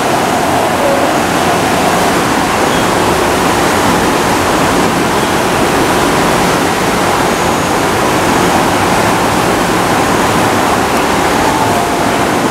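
A steady, loud rushing noise that holds at one level, with no distinct events.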